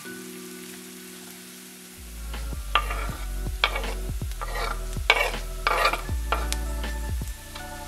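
Chopped onion sizzling in oil in a frying pan. About two seconds in, grated carrot and garlic go into the pan, giving a handful of louder bursts of sizzling and stirring over the next few seconds.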